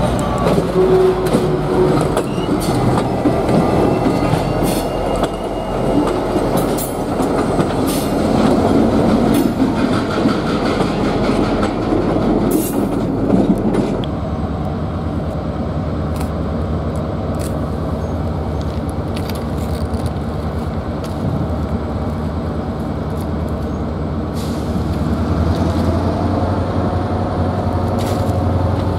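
BNSF diesel-electric locomotives rolling past close by, their wheels clicking over the rail joints and their engines running. About halfway through this gives way to a single diesel locomotive's engine as a steady low drone, which grows louder near the end.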